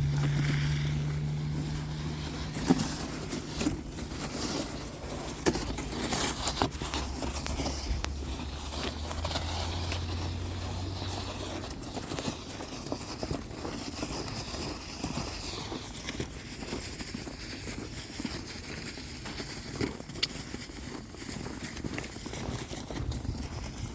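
A vehicle engine hums steadily in the background and fades out about halfway through. Scattered crunches and scrapes run throughout, fitting footsteps in snow.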